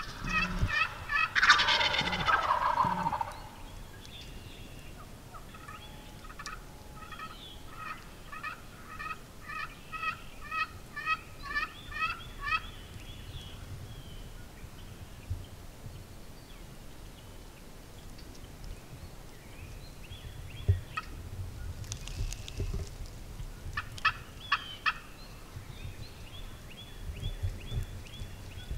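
Wild turkeys calling: a loud gobble in the first few seconds, followed by a long, even series of yelps at about two a second. Near the end come a few short, sharp clucks.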